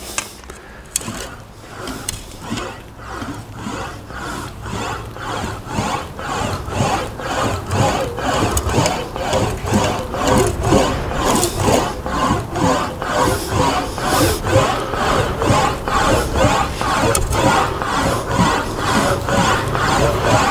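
An English wheel rolling a 1.6 mm aluminium panel back and forth over a full-radius lower anvil, wheeling shape into the panel. It goes in a steady rhythm of rolling, rubbing passes and grows louder over the first few seconds.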